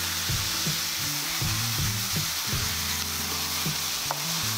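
Leeks, onion and sauce sizzling in a hot wok as a wooden spoon stirs them round, a steady hiss, with soft background music underneath.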